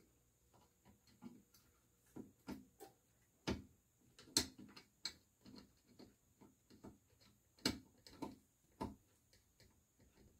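Faint, irregular clicks and taps of a screwdriver driving a blade screw through a wooden ceiling fan blade into its metal blade arm on the fan motor, with the blade knocking lightly against the housing.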